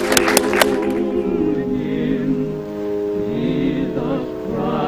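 A choir singing a slow hymn in long held chords. The last few claps of studio applause fade out in the first half second.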